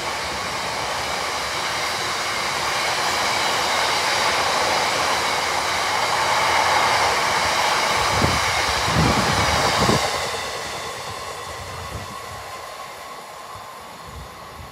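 Freight train's open box wagons rolling past: a steady rumble and clatter of wheels on rail that falls away about ten seconds in as the last wagons go by and the train recedes.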